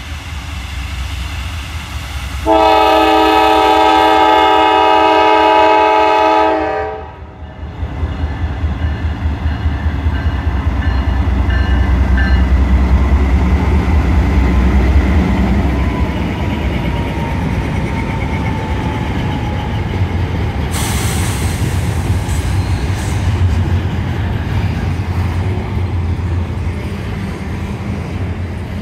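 Two Norfolk Southern GE C44-9W diesel locomotives passing: one long multi-note horn blast starting about two and a half seconds in and lasting about four seconds, then the low rumble of the locomotives going by. The wheels of the double-stack intermodal cars follow with a steady rolling clatter.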